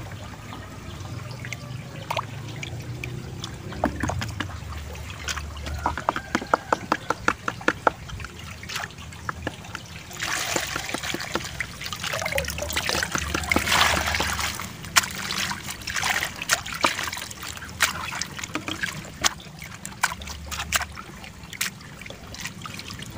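Water trickling, dripping and splashing as green plastic colanders of gourami fry are lifted out of and dipped into basins of water. There are runs of quick patters in the first half and a louder rush of pouring and splashing about halfway through.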